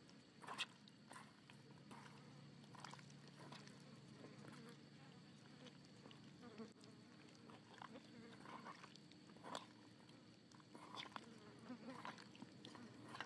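Faint wet squelching and soft taps of hands rubbing spice-coated raw chicken pieces in a metal bowl, a handful of separate squishes scattered through, the sharpest about half a second in.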